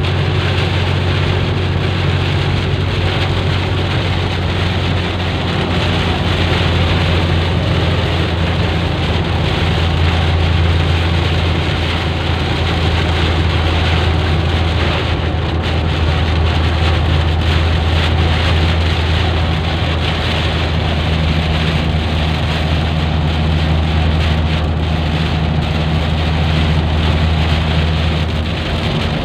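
Heavy rain falling on a moving car, heard from inside the cabin as a steady hiss over the low, constant drone of the engine and tyres.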